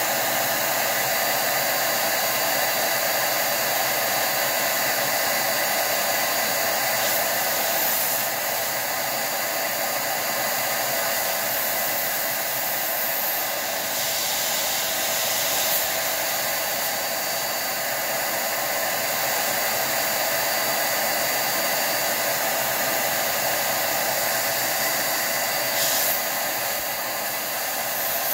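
DataVac electric duster blowing a steady stream of hot air, a continuous rush with a steady motor whine. The air is blasting onto sticky vaporizer residue, and it lets up briefly a few times.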